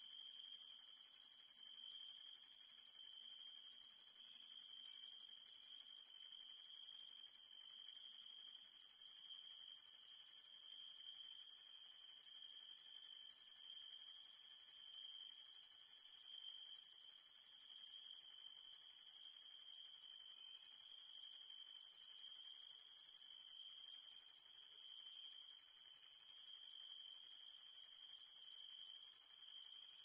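Night chorus of crickets trilling steadily at two pitches, a very high shrill one and a lower one that pulses slightly. It cuts out for an instant about two-thirds of the way through.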